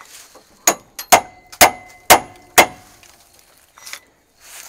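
Hammer blows on steel: about six sharp, ringing clangs roughly half a second apart, stopping a little past halfway, as a rusted pin on a semi truck's cab jack cylinder is knocked loose without lubricant.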